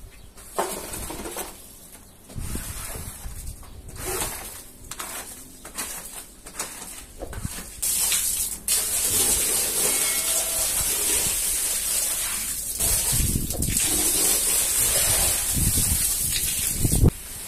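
A squeegee scraping in short, uneven strokes over a soaked rug. About eight seconds in, a steady, loud rush of water from a hose pouring onto the rug takes over and runs until just before the end.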